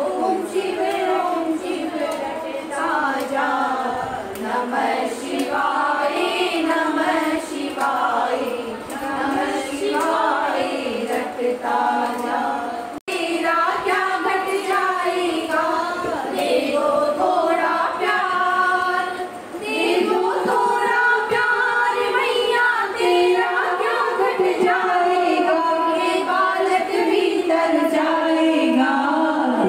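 A group of women singing a Hindu devotional bhajan together in kirtan style, with voices and no instruments. The singing breaks off for an instant about halfway through.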